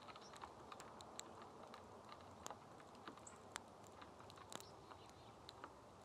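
Faint, irregular clicking and ticking of a small bird cracking sunflower seeds and picking through the seed tray of a feeder, with a few louder cracks in the middle.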